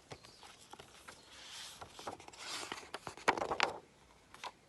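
Pages of a picture book being handled and turned: paper rustling with scattered sharp crackles, loudest about three and a half seconds in.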